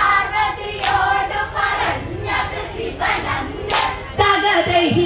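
Women's Onamkali group singing a Malayalam folk song in chorus, with sharp hand claps marking the beat.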